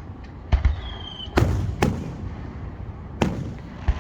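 Aerial fireworks shells bursting in a series of sharp booms, about five in four seconds, each trailing off in a short rumble.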